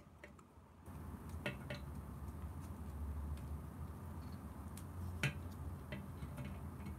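Scattered small clicks and taps of hard plastic being handled as a GoPro Hero (2018) is worked out of its plastic protective casing. The clicks sit over a low steady hum that comes in about a second in.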